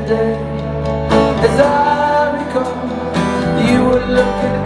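A live rock band playing a guitar-led passage, with a voice holding and bending sung notes over it.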